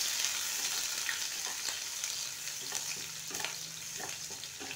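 Sliced onions sizzling in hot mustard oil in a nonstick kadai. A wooden spatula stirs them, scraping and tapping against the pan several times from about a second and a half in.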